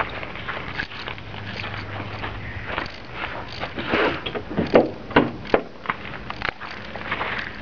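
Footsteps on pavement, with a few sharp knocks and clatters about four to five and a half seconds in.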